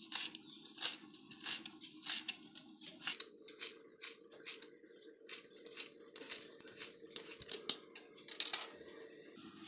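Knife chopping fresh coriander on a plastic cutting board: a run of short, crisp cuts, slow at first and then about two to three a second.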